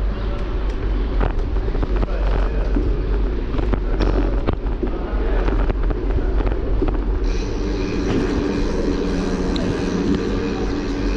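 Wind rumbling and buffeting on the microphone during travel along the open route. About seven seconds in, a steadier hum with a higher hiss joins, like a passing motor vehicle.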